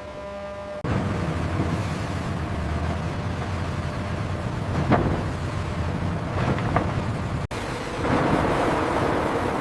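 Heavy log-handling machinery rumbling steadily, with a few sharp knocks around the middle; the rumble sets in abruptly about a second in and changes abruptly near the end.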